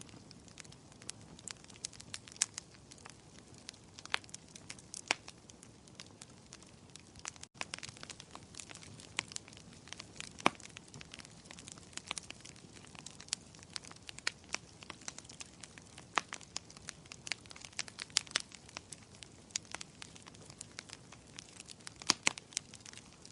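Firewood burning in a fireplace: irregular crackling, with sharp snaps and pops several times a second over a soft hiss of the flames.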